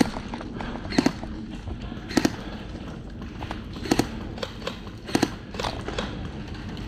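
Airsoft gun firing single shots, a sharp crack about once a second, some of them doubled.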